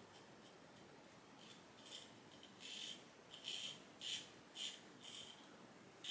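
Short strokes of an A&E B1 Lancer safety razor with a Vi John Super Platinum blade scraping through two days' stubble under lather, on a first pass with the grain. After a quiet first second and a half, there are about seven brief strokes at irregular spacing.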